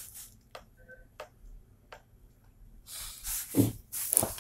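A few light taps and clicks, then, from about three seconds in, bursts of rubbing and rustling with dull thumps: the recording device being handled and swept over a wooden table.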